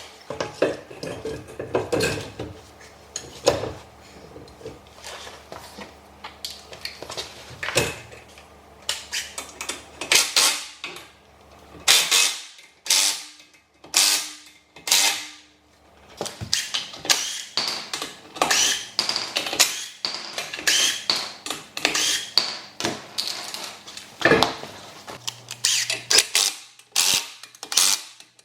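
Metal tools and wheel hardware clinking and knocking irregularly during a car wheel change, with lug nuts, wrench and wheel spacer plates being handled.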